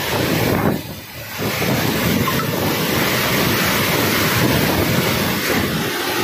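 Storm wind blowing hard with heavy rain, the gusts buffeting the phone's microphone. It eases briefly about a second in, then rises and holds loud.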